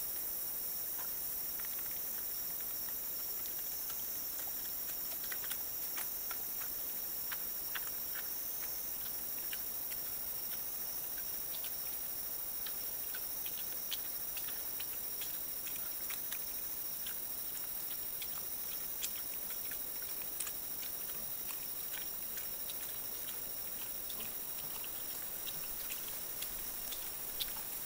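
Wild boar feeding on bait corn at the ground, small irregular crunching clicks as it chews and roots through leaf litter, over a steady high-pitched hiss.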